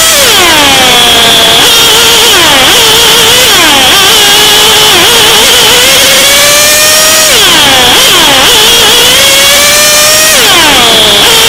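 Racing kart engine at full race pace. The pitch drops sharply as the driver lifts for a corner at the start, then wavers low through a twisty section. It climbs steadily on a straight, drops hard again about halfway through, climbs, and drops once more near the end before picking up again.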